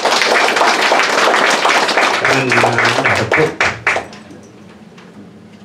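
Audience applauding, a dense spatter of clapping that stops about four seconds in, with a man's voice briefly heard through it.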